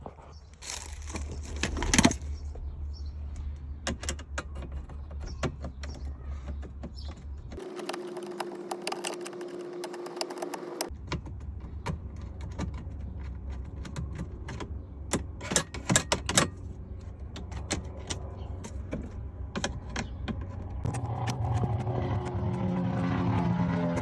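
Clicks, knocks and rattles of plastic interior trim panels and their clips being worked loose and pulled off a car, over a low steady hum.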